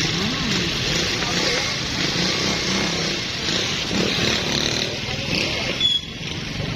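Motorcycle engine running steadily, with road and wind noise.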